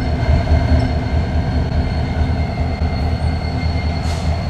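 Union Pacific coal train rolling slowly across a steel girder bridge: a steady deep rumble with a thin, steady high wheel squeal over it. A brief hiss about four seconds in.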